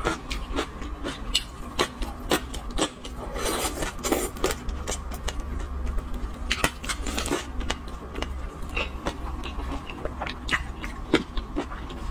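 Close-miked mouth sounds of eating sauced seafood: wet chewing and lip smacks, a quick run of small clicks, with two longer slurping sucks, one about three and a half seconds in and one about six and a half seconds in.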